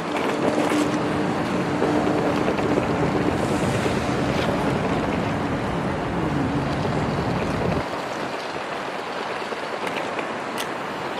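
Steady outdoor city noise: a wash of distant traffic with wind buffeting the microphone. A faint steady hum sits under it in the first half, and the low rumble of the wind drops away about eight seconds in.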